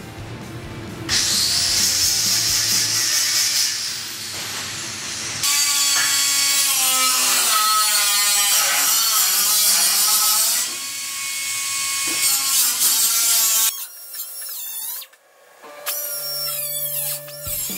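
Handheld power grinder working on steel car bodywork in several long bursts, its pitch wavering under load, with a short break about fourteen seconds in.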